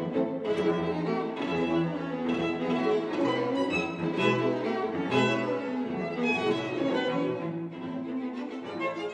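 A string quartet of two violins, viola and cello playing a classical piece, with a few strong low cello notes near the middle.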